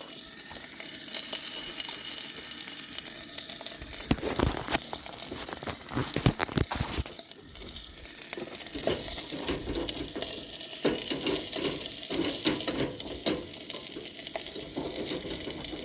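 Pork fat sizzling and crackling as it renders in a bent tin can used as a pan over a fire, with a few sharp clicks and knocks between about four and seven seconds in.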